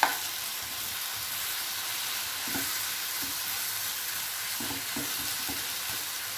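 Onion and tomato masala sizzling steadily in a nonstick frying pan as a steel spoon stirs chilli powder through it, with soft scrapes of the spoon on the pan and one sharp clink right at the start.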